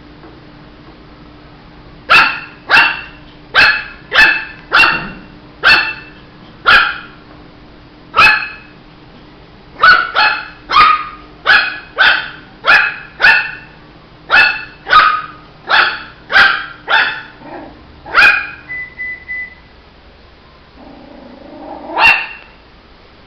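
Shih tzu puppy barking over and over, short sharp barks about one or two a second for some sixteen seconds, then a pause and a single bark near the end.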